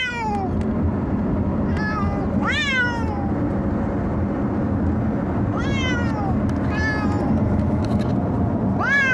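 Pet cats in carriers meowing over and over in a car, about six drawn-out meows that each rise and then fall in pitch, over the steady low rumble of the car. The cats hate riding in the car.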